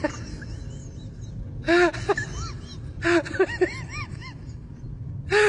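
Black Labrador whimpering in short rising-and-falling whines while begging for food held out to it: a couple of whines about two seconds in, a cluster around three to four seconds, and one more near the end.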